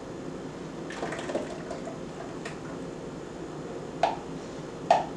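Heavy cream being poured from a measuring cup into a tall glass container of milk and sugar: a soft liquid pour, with a few faint clicks near the end.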